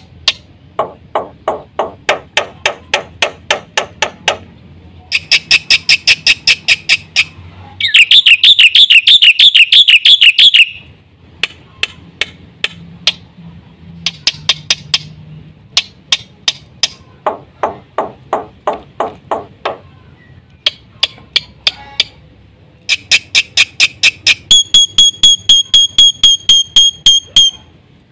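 Black-winged myna (jalak putih) singing a long, varied song of mimicked notes: series of rapidly repeated sharp chattering notes, a loud warbling trill about a third of the way in, and near the end a run of ringing high whistled notes.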